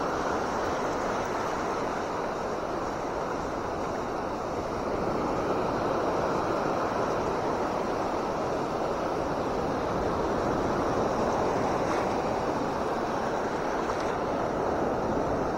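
Steady wash of surf breaking on the beach, an even rushing noise with no pauses.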